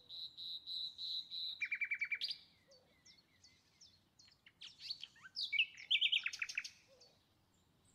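A small bird chirping faintly: a held high whistle, then a quick run of about eight chirps, then scattered chirps and short sliding notes about halfway through.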